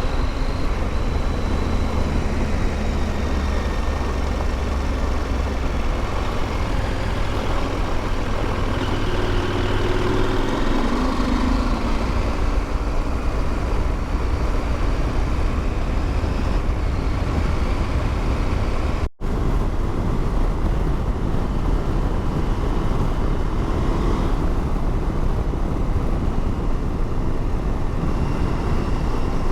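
Motorcycle engine running under way with heavy wind rush, heard from inside the rider's helmet; the engine note shifts about a third of the way in. The sound cuts out for an instant about two-thirds through.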